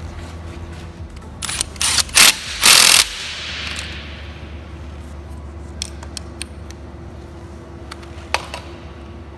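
Workshop tool noise on a car under assembly: three short, loud mechanical bursts and then a longer one, trailing off in a fading hiss, followed by a few light clicks, over a steady low hum.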